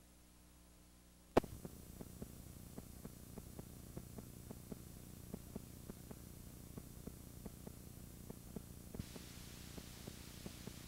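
Blank videotape playback noise: a sharp click about a second in, then faint steady hum and hiss dotted with irregular small ticks as the tape plays past the end of its recording. The hiss gets slightly brighter near the end.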